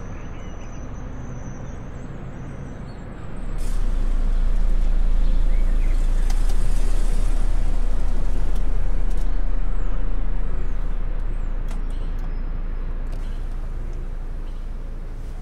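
A Mercedes-Benz car's engine over a steady street hum: a low rumble swells about three and a half seconds in, stays loud for several seconds, then fades as the car drives away.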